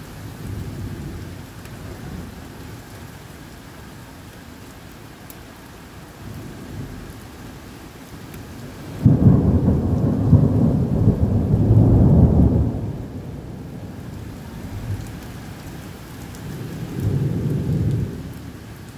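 Heavy rain falling steadily in a thunderstorm. About halfway through a loud thunderclap breaks suddenly and rumbles for some four seconds, and a weaker roll of thunder follows near the end.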